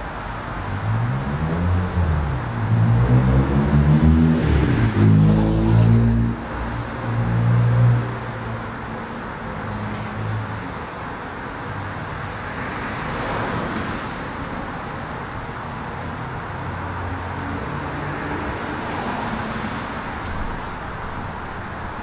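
A motor vehicle's engine passing, its pitch rising and falling as it revs, loudest from about three to eight seconds in. It then fades into a steady rushing noise.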